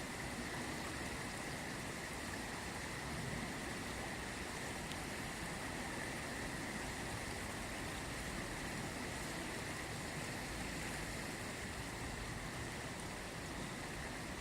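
The Ganges flowing: a steady, unbroken rush of river water.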